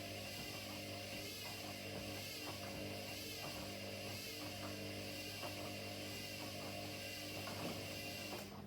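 Two front-loading washing machines running mid-cycle: a steady motor hum with a hiss over it. The hiss cuts off suddenly near the end, leaving the lower hum.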